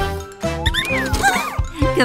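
Cheerful cartoon background music, with a few quick gliding whistle-like notes rising and falling about halfway through.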